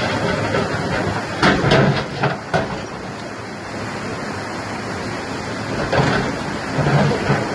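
Excavator working with a rock bucket: a steady machine rumble, with a cluster of sharp clanks about a second and a half in and a few more near the end.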